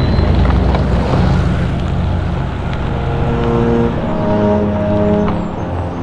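Volkswagen Vanagon driving away on a gravel road, its engine and tyres a steady low rumble, under background music of held notes that change every second or so.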